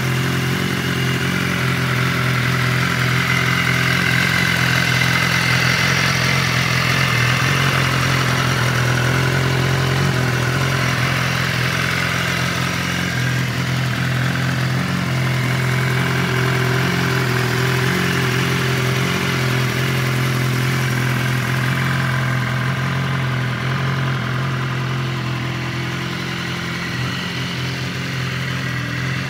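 BMW S1000RR's inline-four engine idling steadily.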